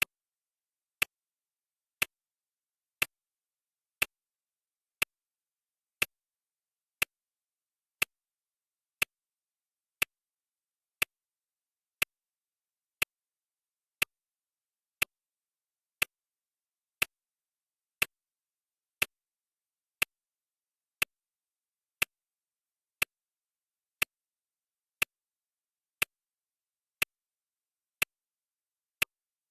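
Clock ticking sound effect: one sharp tick each second, evenly spaced, marking off the seconds of a countdown timer.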